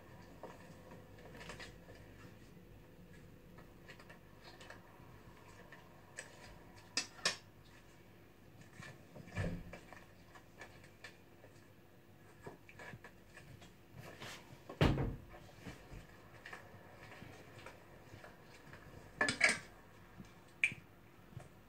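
Scattered sharp knocks and clatters of dishes, about half a dozen over the stretch, the loudest about midway and another pair near the end, over a faint steady hum.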